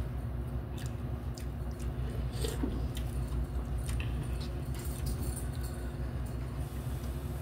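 Eating sounds from Shin Ramyun instant noodles: chewing, soft slurps, and scattered light clicks of a fork and spoon against the cups. Under them runs a steady low hum.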